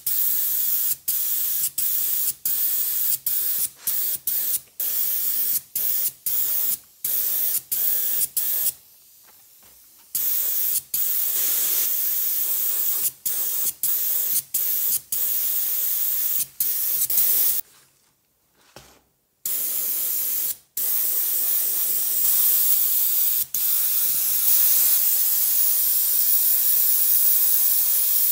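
Pressurised spray hissing in quick short bursts, about two a second, with two longer pauses, then spraying almost without a break through the last third.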